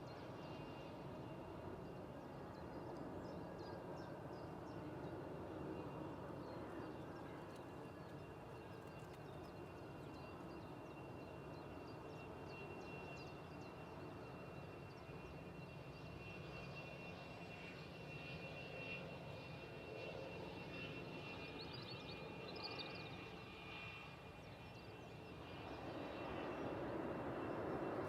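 Airbus A380 on final approach: distant jet rumble with a steady high whine, growing louder near the end as it comes closer.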